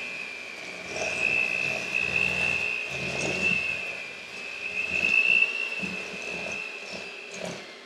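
Electric hand mixer running with a steady high whine, its beaters knocking against a stainless steel bowl as they mix cookie dough. The mixer stops near the end.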